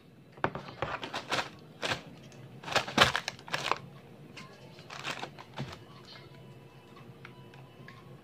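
Handling clicks and plastic knocks as a condenser microphone is fitted into its spider shock mount, a quick run of sharp clicks in the first six seconds, then fewer and quieter.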